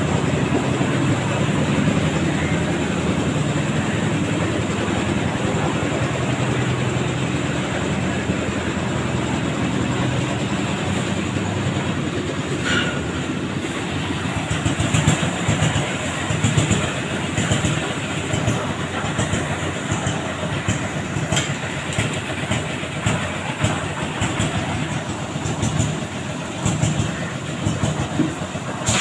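Concrete mixer machine running: a steady engine drone with a rattling clatter, turning rougher and more uneven from about halfway through.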